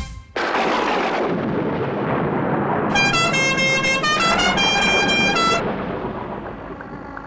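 A sudden loud rumbling crash about a third of a second in that fades slowly over several seconds, with a quick run of car-horn honks at changing pitches in its middle.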